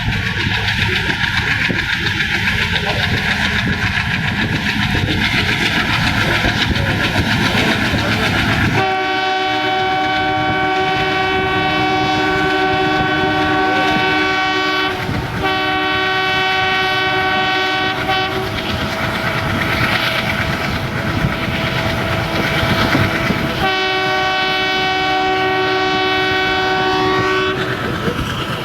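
ALCO WDM3A diesel locomotive running, its engine and wheels on the rails rumbling for the first nine seconds or so. Then its horn sounds three times: a long blast of about six seconds, a quick second one of about three seconds, and a third of about four seconds near the end, with rail and engine noise between.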